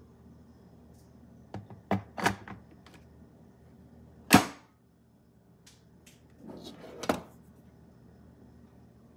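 Hard clicks and knocks of an electric kettle being handled: a quick run of clicks about two seconds in, one loud sharp clack a little past four seconds, then a brief rustle ending in another sharp click near seven seconds.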